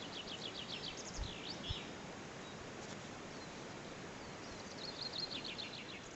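A songbird singing two quick trilled phrases of repeated high notes, the second running downward, over a steady outdoor hiss, with a couple of faint low knocks.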